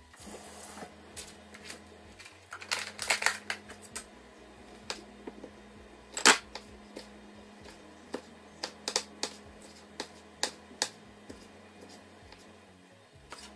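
Kitchen knife cutting yellow bell pepper on a wooden cutting board: irregular sharp taps and knocks of the blade on the board, a quick cluster about three seconds in and one loud knock about six seconds in.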